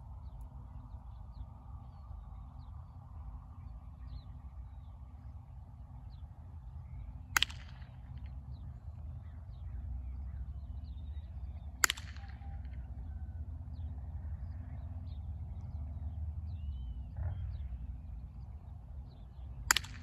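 Three short, sharp snaps of a balloon-and-bottle-cap marshmallow launcher being fired, several seconds apart, over a steady low rumble, with birds chirping faintly.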